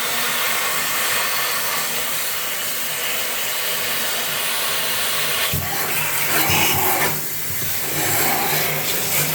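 Steady loud rush of air from a powered cleaning tool (a blower or vacuum) running at full blast on a dirty printer. A few knocks and some rumbling come in about five and a half seconds in and last a couple of seconds.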